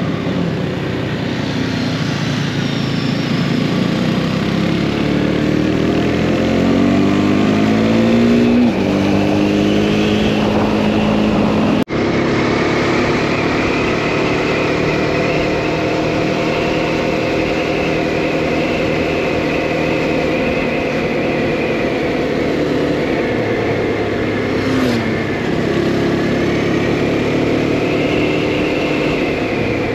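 Motorcycle engine heard from the rider's seat while riding: the revs climb for several seconds, drop with a gear change about nine seconds in, then hold fairly steady, with another shift and pick-up after about 25 seconds, over steady wind and road noise. The sound cuts out for an instant about twelve seconds in.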